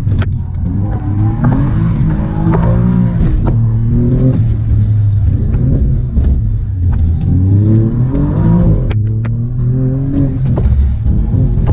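Alfa Romeo Giulia Quadrifoglio's twin-turbo V6, heard from inside the cabin, driven hard on track: the engine note climbs and drops back several times as the car accelerates and lifts off. There are a few sharp cracks about nine seconds in.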